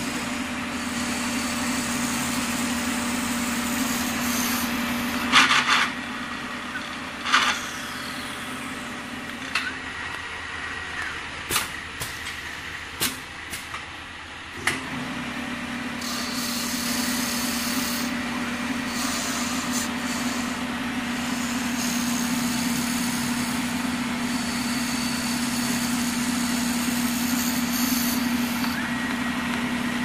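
Automatic wood-turning lathe running with a steady hum as it turns wooden knob blanks. About five seconds in come two short hissing bursts. Then the hum dies down for several seconds while a run of sharp clicks and knocks is heard, and the steady hum returns about halfway through.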